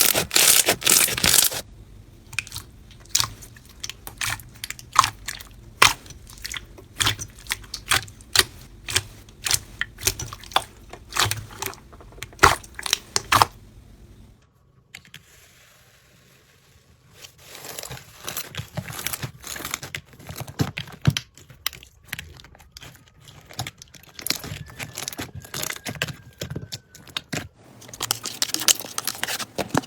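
Slime being worked by hand, with irregular sharp popping and crackling clicks. The clicks are dense at the start, thin out, stop for a few seconds near the middle, then come back and grow dense again near the end.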